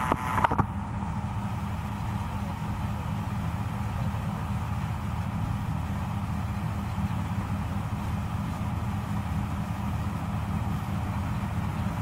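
New Holland TC5070 combine harvester running steadily while cutting standing wheat, a low, even machine drone. A short burst of crackling comes in the first half second.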